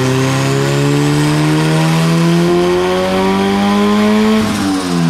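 Turbocharged Honda Civic four-cylinder on a chassis dyno, revs climbing steadily through a full-throttle pull with a faint rising turbo whistle; a test of boost after a little boost-solenoid duty was added. About four seconds in the driver lifts off and the revs and whistle fall away.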